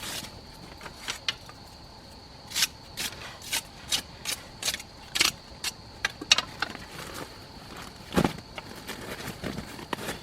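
A string of sharp clicks and knocks, two or three a second, then a heavier thump about eight seconds in, over a steady high-pitched tone.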